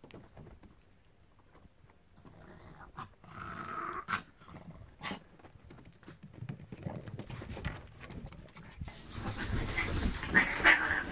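A small flat-faced dog panting, the sound growing louder and busier near the end.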